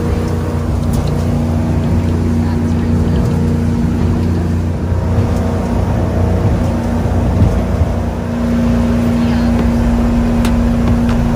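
Fishing boat's engine running under way, a steady drone heard from inside the boat's cabin. Its tone shifts slightly about eight seconds in.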